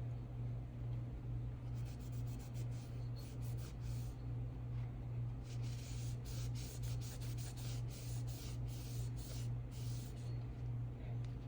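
Solvent-dampened cotton swab rubbing over a pistol slide in short scratchy strokes, wiping excess enamel colour-fill paint out of the areas where it isn't wanted; the strokes start about two seconds in and stop near the end. A steady low hum runs underneath.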